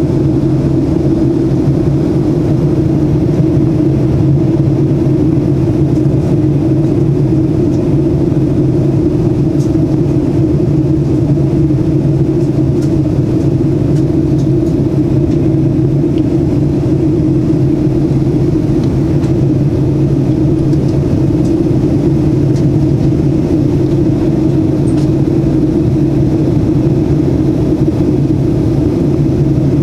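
Cabin noise of a Boeing 737-800 on approach: a steady low drone of its CFM56-7B engines and rushing air, heard from inside the cabin.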